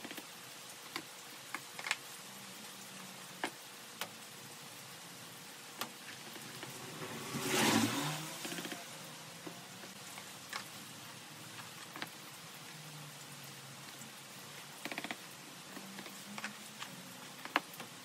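Scattered light clicks and taps as a homemade plastic sliding seeding board and a cell tray are set down, slid and lifted, with a brief quick rattle of clicks near the end. A louder noisy swell rises and fades over about two seconds a little before the middle.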